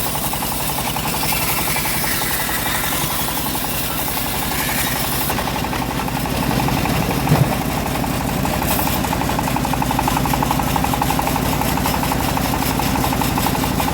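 Engine-driven homemade bandsaw running with an even engine rhythm, a little louder after about six seconds, with one brief louder knock about seven seconds in.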